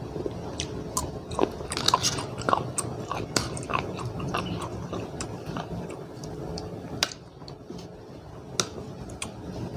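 A person chewing and biting food close to the microphone, a mouthful of seafood papaya salad, with many small irregular wet clicks.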